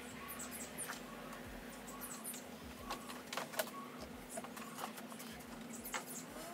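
Small birds chirping in short, high calls, scattered throughout, over a faint steady hum. A few sharp clicks about halfway through come from an inked woodblock being handled on a wooden table.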